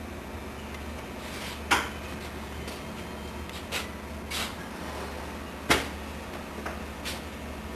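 A few short, scattered knocks and clatters, about five in all and two of them louder, over a steady low hum.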